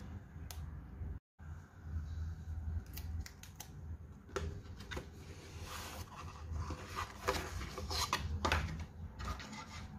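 Hands handling cardboard packaging and plastic wrap: scattered clicks and short rustles as a small box is opened, over a steady low hum.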